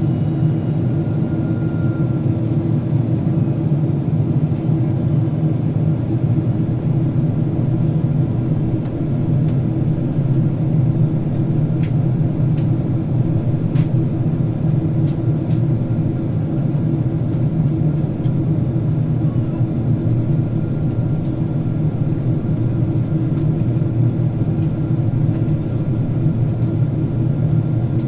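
Steady cabin noise inside a Boeing 767-400ER in descent: an even, low rumble of engines and airflow, with a few faint clicks.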